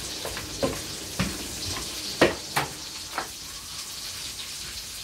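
Rolling pin working bazlama dough on a floured wooden counter, giving several sharp knocks, the loudest about two seconds in. Under it a steady faint hiss of a flatbread cooking in a hot electric pan.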